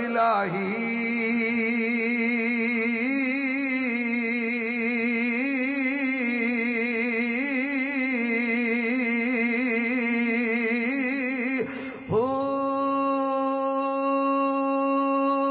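A man singing Sufi kalam, drawing out one long note with a wavering vibrato for about eleven seconds. After a short break he holds a second, higher and steadier note.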